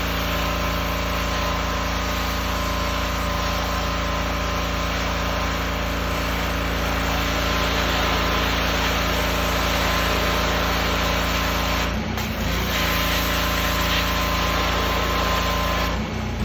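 Pressure washer running steadily, its engine note under the hiss of the water spray. The note shifts briefly twice, about twelve seconds in and near the end.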